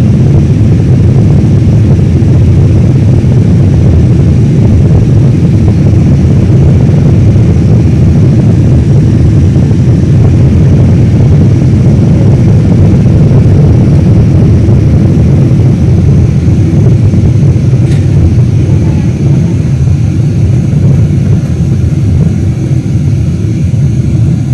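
Airliner cabin noise during the climb after take-off: the jet engines and rushing air make a loud, steady low rumble that eases slightly near the end.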